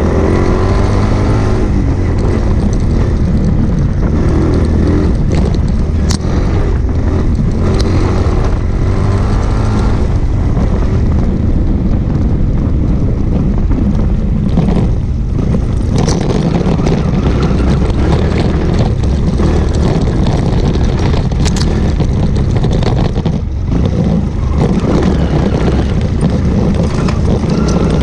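Air-cooled single-cylinder motorcycle engine running under load on a dirt trail, revs rising and falling as the throttle is worked, with a few sharp knocks from the bike over rough ground.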